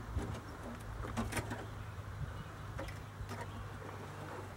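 Faint scattered rustles and light clicks of hands pushing a Bondo screen mesh patch into a rust hole in a car's rocker panel, over a steady low hum.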